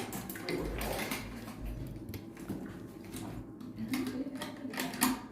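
Scattered small clicks, knocks and rattles of hard objects being handled, under a faint low murmur.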